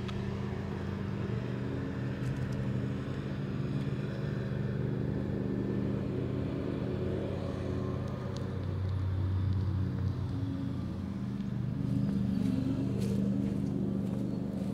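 Lawn mower engine running steadily, its level swelling a little past the middle and again near the end.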